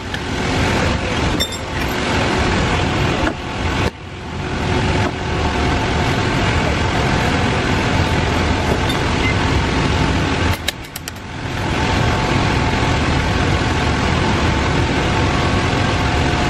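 Loud, steady running noise of an engine or machine, dropping away briefly about four and eleven seconds in and building back up each time.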